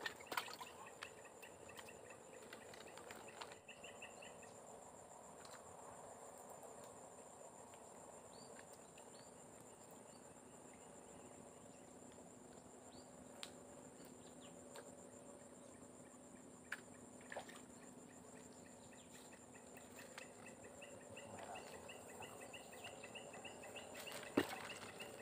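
Steady, high-pitched insect drone with a fine rapid pulse, over faint outdoor background. A faint pulsing chirp comes in at the start and again near the end. One sharp knock sounds just before the end.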